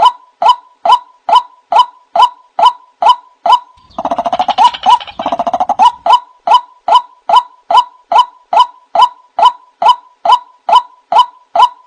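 White-breasted waterhen calls played as a lure recording: a short, loud note repeated about twice a second, broken about four seconds in by a rapid, dense chattering run of nearly two seconds before the even notes resume. A faint steady tone runs underneath.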